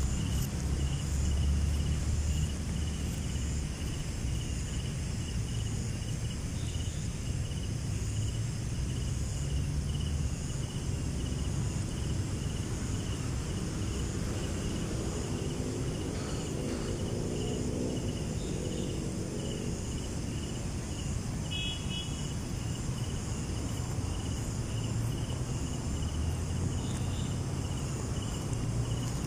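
Crickets and other night insects chirping in a steady pulsing chorus, over a low rumble. About halfway through, a faint pitched hum, such as a distant engine, rises and falls for a few seconds.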